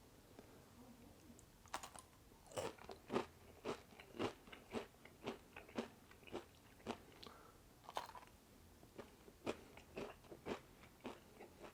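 Close-miked chewing of a mouthful of food, with wet, crisp crunches at a steady pace of about two chews a second, starting a couple of seconds in.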